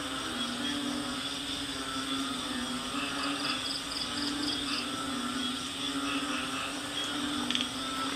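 Night chorus of frogs and insects: a steady low droning chorus, with a high, rapid pulsing call about three seconds in.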